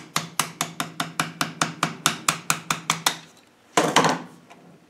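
Quick, even hammer taps on a screwdriver, about five a second, driving a stuck, stretched circlip off a gearbox shaft, with a low ringing tone under them. The tapping stops after about three seconds, and a brief loud clatter follows a little later.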